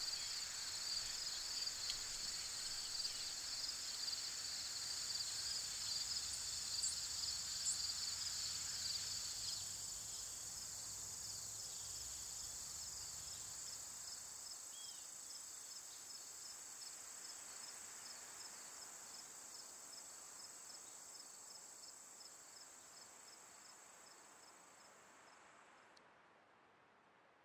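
Insect chorus at dusk: a steady high shrill with a regular pulsing chirp about twice a second. A faint low rumble underneath drops away about halfway through, and the chorus fades slowly, ending about a second before the close.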